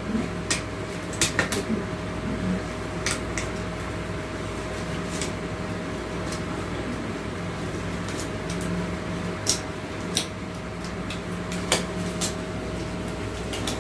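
Steady mechanical hum of a small room, with about a dozen light clicks and knocks scattered through it.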